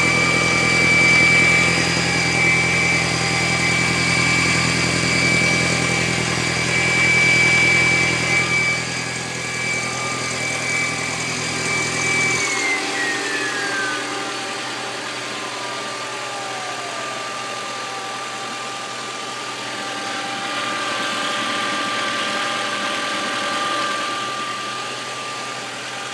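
Audi A4 B6's 1.8-litre turbocharged four-cylinder idling after sitting all day, with a loud high-pitched whine over it. About twelve seconds in, the whine cuts off and winds down in pitch over several seconds, and the engine's low rumble drops at the same moment. A new fuel filter has not cured the whine.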